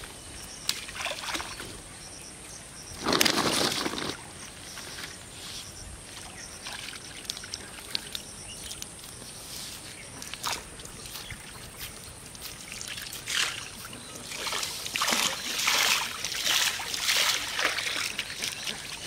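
Pond water splashing and sloshing in several bursts as bait is thrown in and hands work in the shallows: one strong splash about three seconds in, a few small ones in the middle, and a run of repeated sloshes near the end.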